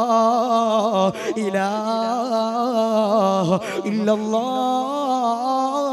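A man's voice chanting melodically through a PA system in long held phrases on a fairly steady pitch, with wavering ornaments and a reverberant tail. The line breaks briefly about a second in and again after about three and a half seconds.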